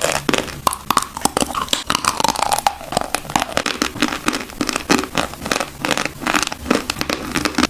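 Chalk being chewed close to the microphone: a rapid run of crunching and crackling clicks as the chalk is bitten and ground between the teeth.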